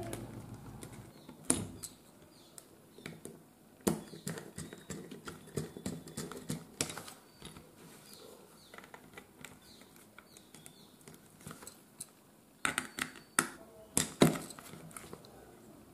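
Irregular clicks and taps of hands working with a small screwdriver on a plastic extension board's brass terminal screws and wires, with a quick cluster of louder clicks near the end.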